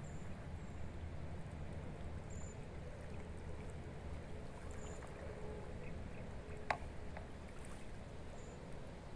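Steady low rush of a swollen river, with water pouring and trickling off a square lift net as it is hauled up out of the current. A single sharp click comes about two-thirds of the way through.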